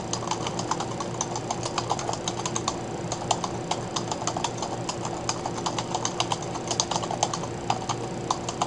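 Computer keyboard being typed on quickly and steadily, several keystrokes a second, over a steady low hum.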